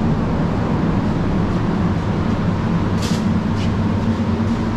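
Large air-conditioning units running with a steady low hum and drone, noisy enough to be remarked on. Two brief hisses about three seconds in.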